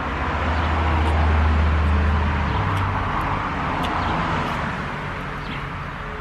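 Road traffic noise from a nearby street: a vehicle engine drones low while tyre and engine noise swell to their loudest about a second and a half in, then slowly fade.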